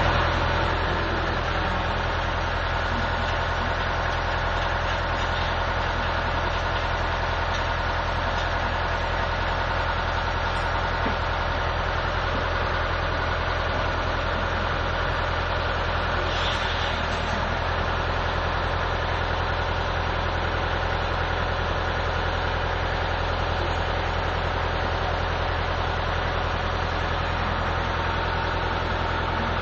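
Machine tool running steadily with a low, constant hum while machining the seat of a 12-inch check valve.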